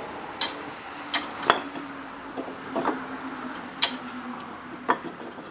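Sharp knocks and clicks, about five spread out, as a lever works a workbench's hinged caster assembly down onto its casters.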